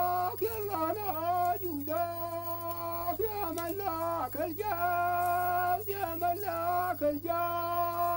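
An elderly man chanting a sung prayer in a high voice, holding long notes with short wavering turns between them. A steady low hum runs underneath.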